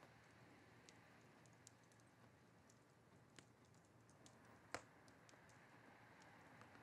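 Near silence: faint room tone with scattered small clicks, one a little louder about two-thirds of the way through.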